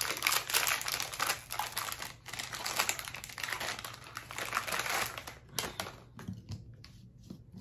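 Packaging crinkling and rustling as a flavor cartridge is unwrapped, dense for about five seconds, then thinning to a few scattered clicks and taps.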